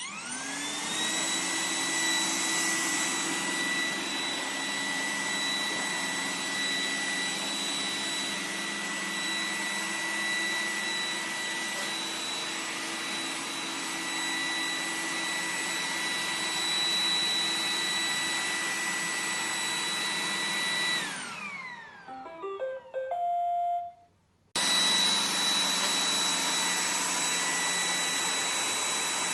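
iRobot Roomba 980 robot vacuum's motor winding up to a steady whine and running. About 21 seconds in it winds down, with a few short tones, then starts again abruptly at full speed.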